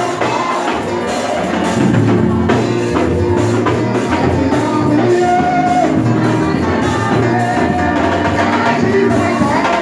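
Gospel band music, played loud and steady, with a drum kit, a bass line and singing.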